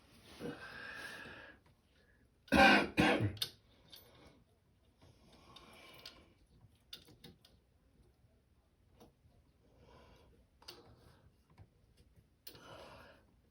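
A man clears his throat in two short, loud bursts about two and a half seconds in. Around that, light scattered clicks and ticks come from screws being turned by hand, along with soft breathing.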